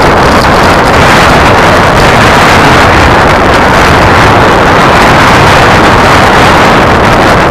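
Loud, steady rush of wind buffeting the microphone while moving along a gravel track, with no clear engine note.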